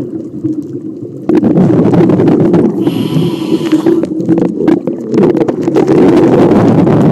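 Scuba diving regulator heard underwater: exhaled bubbles rumbling, broken about three seconds in by a hissing inhale.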